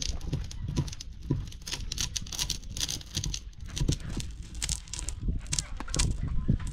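Heavy hand-pushed stone ground back and forth over a stone slab, crushing wild pistachios: a gritty crunching and scraping made of many small irregular cracks.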